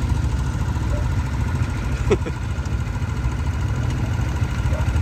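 ATV engine idling steadily, with a fast even pulse.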